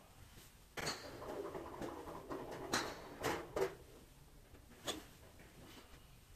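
Practice golf swings: the nylon windbreaker suit rustles through the swing, with several short sharp swishes and ticks from the club.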